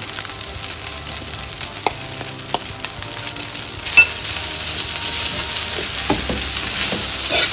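Fried rice with vegetables sizzling in a frying pan while it is stirred, with scattered scrapes and clicks of the utensil against the pan. One sharper clink comes about four seconds in, and the sizzle is a little louder after it.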